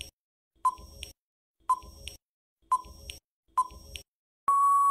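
Quiz countdown timer sound effect: four short beeps about a second apart, then a long steady beep near the end marking time up.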